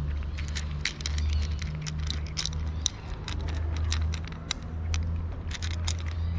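A cat chewing dry kibble close up, with irregular sharp crunches several times a second. A loud low rumble runs underneath, swelling and easing about once a second.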